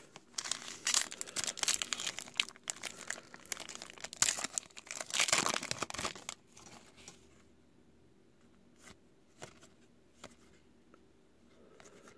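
Foil wrapper of a trading-card pack crinkling and tearing as it is ripped open, a dense crackle for about seven seconds, then a few faint clicks as the cards are handled.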